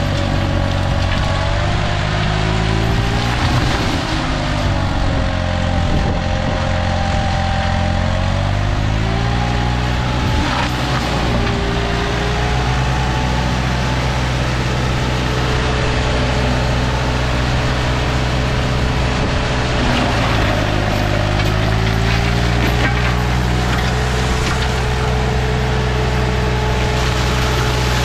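Green Climber LV600 remote-controlled slope mower's Kohler engine running hard while its flail mulching head shreds brush and small trees. The engine pitch sags under the load a few seconds in and again about twenty seconds in, then recovers each time. A few sharp cracks come from branches being chewed.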